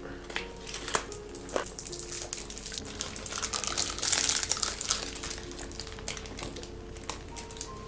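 Toffee wrappers crinkling and rustling as tamarind toffee sweets are unwrapped, with irregular small clicks, busiest in the middle.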